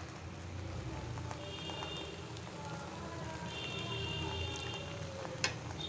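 Sweet rice with melting sugar cooking in a karai over a medium flame: a steady crackling, sizzling hiss over a low hum.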